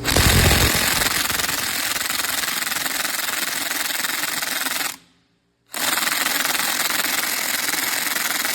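DeWalt DCF891B 20V cordless 1/2-inch impact wrench hammering on setting 3 in two long bursts, about five seconds, then after a short pause about four more, without breaking the fastener loose.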